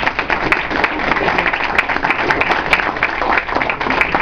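Audience applauding, a dense patter of many people clapping at once.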